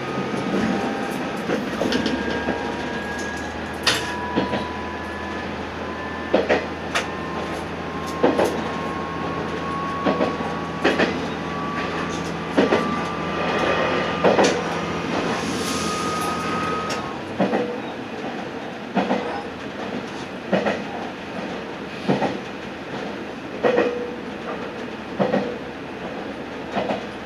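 Diesel railcar running on the line: a steady engine drone with a slowly rising gear whine as it gathers speed. About two-thirds of the way through, the drone and whine drop away and the car coasts. The wheels click over rail joints all the while, in a regular beat that quickens as the speed builds.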